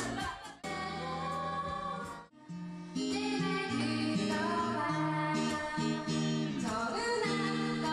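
Pop song with singing, played through a karaoke room's sound system. The music drops out briefly twice, about half a second in and again about two seconds in, then carries on.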